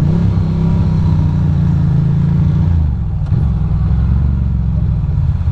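Ducati Monster's V-twin engine pulling under throttle, recorded from the rider's helmet. The note climbs at the start, holds steady, then drops about three seconds in as the throttle eases off.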